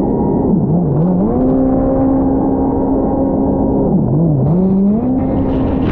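The 180 hp engine of a Fast Powersports F1 jet ski running hard under way, a steady high engine note over the rush of water. The pitch drops twice, about a second in and again about four seconds in, each time climbing back to full speed within about a second.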